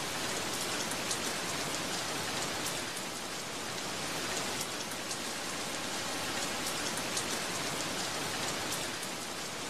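Steady rain falling on a surface: an even hiss with scattered small drop taps.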